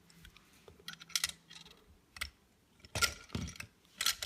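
Plastic toy gumball machine being worked by hand: a run of small clicks and rattles from its coin slot, knob and carousel mechanism as a gumball is dispensed. The busiest clatter comes around three seconds in and again near the end.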